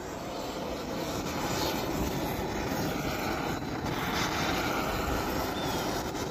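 Handheld gas torch burning with a steady rushing noise as its flame sets freshly sprayed paint alight; the noise swells a little over the first second or two, then holds.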